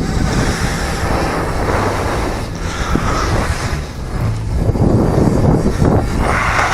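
Parrot Bebop 2 quadcopter's propellers humming as it flies close, under loud wind rumble on the microphone.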